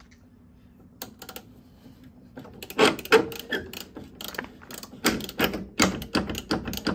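Socket ratchet clicking as it is worked back and forth on a stubborn suspension clevis bolt to free up its threads. A few clicks come about a second in, then from about two and a half seconds a fast, uneven run of clicks and knocks.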